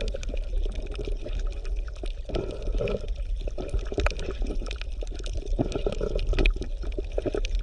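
Water bubbling and gurgling, with many small irregular pops over a steady low rumble.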